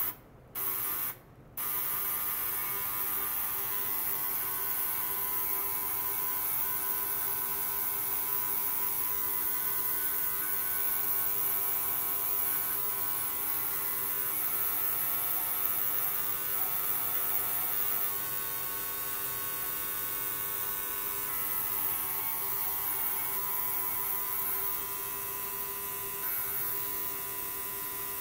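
A 40 kHz, 100 W ultrasonic cleaner running with water in its tank gives a steady buzzing hum of several fixed tones, with a hiss of cavitation above it. It stutters on and off twice in the first second and a half, then runs steadily until it cuts off.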